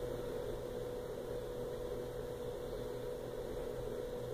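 A steady electrical hum: one constant mid-pitched tone with a lower one beneath it, over a faint even hiss.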